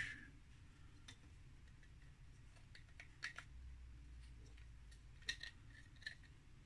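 Faint, scattered clicks and taps of a 3D-printed plastic fan duct and a small blower fan being handled and fitted together, over a low steady hum.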